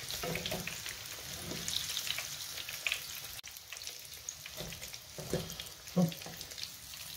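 Hot oil sizzling and crackling in a frying pan as fried meatballs are lifted out with metal tongs, with a few short knocks of the tongs against the pan and bowl.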